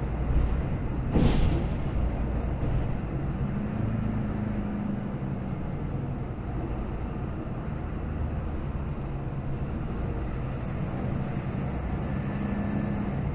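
Volksbus 18.280 OT city bus heard from inside the passenger cabin while underway: a steady engine drone with road rumble. A loud jolt or knock comes about a second in, and a high-pitched squeal joins over the last few seconds.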